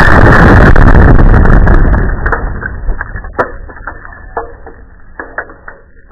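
About one pound of Tannerite exploding: a sudden blast at the start, loud enough to overload the microphone for about two seconds, then dying away under scattered ticks and knocks as dirt and gravel rain back down.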